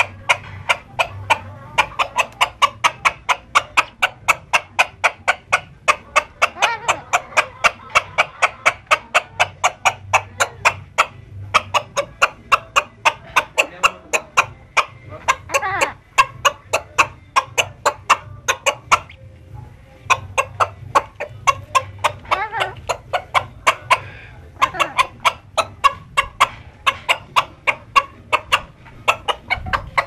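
Chicken clucking: a rapid, even run of short clucks, about four a second, with a brief pause about two-thirds of the way through.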